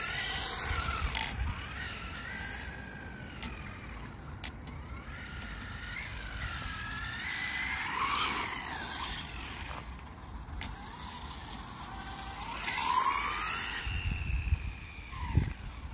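WLtoys A959B electric RC buggy driving, its motor whining and sliding up and down in pitch again and again as the throttle is worked, with a few short clicks.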